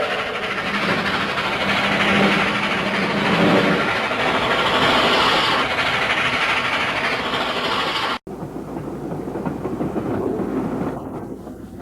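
Train sound effect: a running train, a dense rattling noise, which cuts off abruptly about eight seconds in and is replaced by a quieter steady noise.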